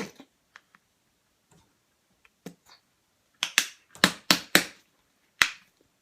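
Conditioner squeezed from a plastic bottle: a string of short, sharp snaps and splats, mostly bunched together after about three and a half seconds.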